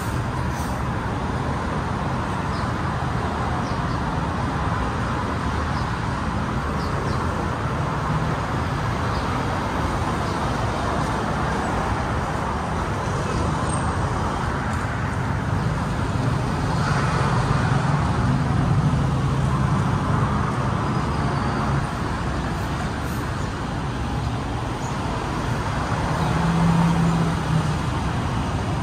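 Steady road traffic, a constant hum with low engine rumble, swelling twice as vehicles pass close by.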